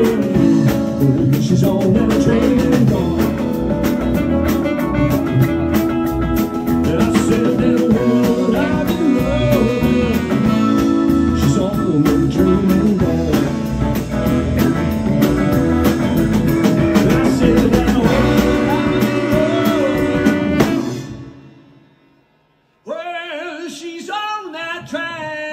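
Live blues-rock band playing an instrumental passage with electric guitar and drum kit. About 21 seconds in the band fades out to a brief silence, and then a lone electric guitar comes in with bent, wavering notes.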